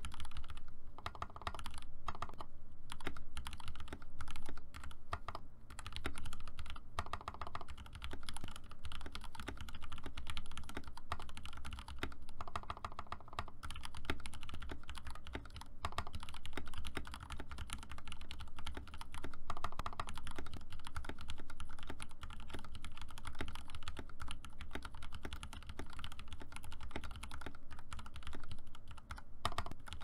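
Steady, fast typing on a 60% custom mechanical keyboard with lubed Gateron Yellow linear switches, an aluminium plate, a transparent plastic case and PBT keycaps: a continuous run of keystroke clacks.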